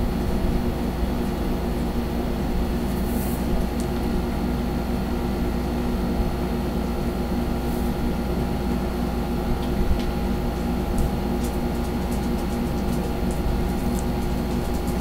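A steady machine hum made of several constant tones runs throughout. Over it come a few faint, brief scratches of a marker pen drawing on paper.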